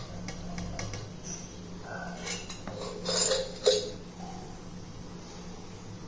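Stainless steel puttu tube and its push rod knocking and scraping against a ceramic plate as the steamed puttu is pushed out and the tube lifted away: a few light clicks, a short clatter, then one sharp ringing clink about three and a half seconds in.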